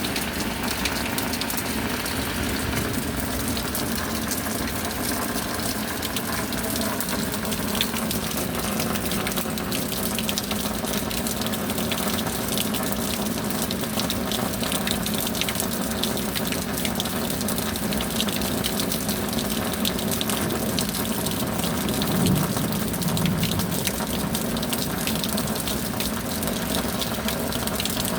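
Steady heavy rain: an even hiss dense with the ticks of individual drops, swelling slightly about two-thirds of the way through.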